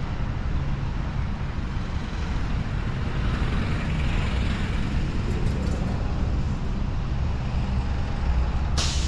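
City street traffic: vehicles pass with a steady low engine rumble and tyre noise that swells about halfway through, and a short sharp hiss near the end, such as a bus's air brakes releasing.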